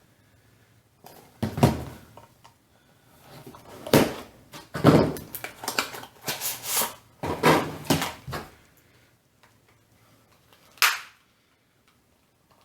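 Toy figure packaging being handled and opened: irregular crinkles, rustles and knocks in bunches, with a single sharp snap near the end.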